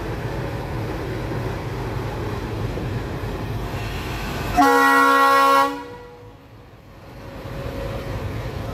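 Diesel locomotive air horn: one blast of about a second, a chord of several notes, starting and stopping sharply, over the steady rumble of a train running. The rumble falls away right after the horn and builds back up over the next couple of seconds.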